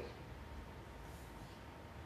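Screw cap being twisted open on a small bottle of grape juice fermented with kefir grains, with a faint brief hiss of escaping gas about a second in, from the juice's fermentation fizz.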